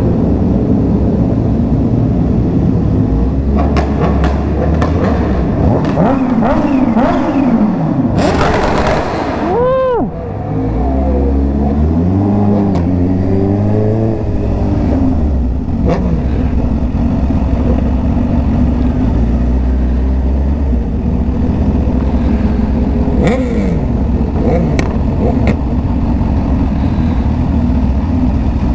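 Yamaha R1 sport bike's crossplane inline-four with an aftermarket exhaust, running under way at speed. The revs climb and then drop sharply about ten seconds in, rise and fall several more times just after, and change again about two-thirds of the way through.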